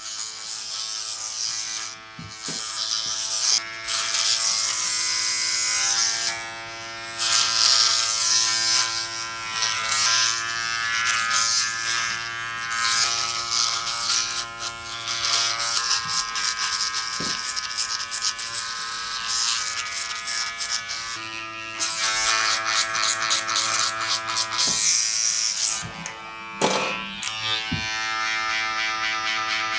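Electric hair clippers running with a steady buzz while cutting a fade into the sides of the head. The cutting noise swells and drops in stretches as the blade is worked through the hair.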